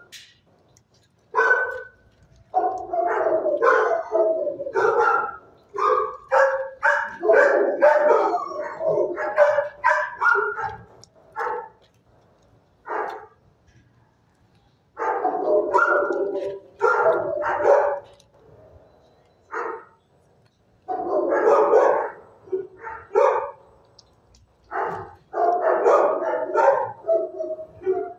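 Dog barking repeatedly in runs of quick barks, with pauses of a second or more between the runs.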